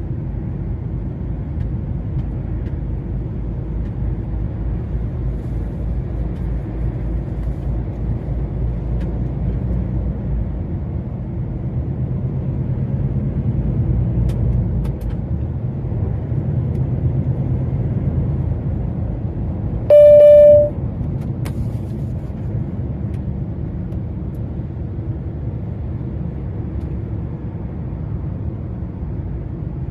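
DAF XF 480 lorry driving on the motorway: a steady low rumble of engine and road noise. About two-thirds of the way through, a single loud, short horn-like beep sounds for under a second.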